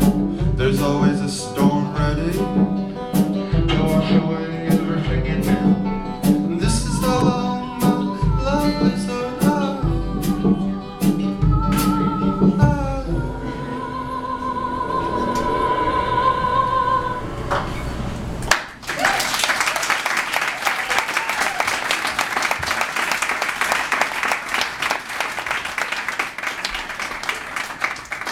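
A band plays a song with a steady drum beat and bass, which thins to a long held high note before the music stops suddenly. An audience then applauds.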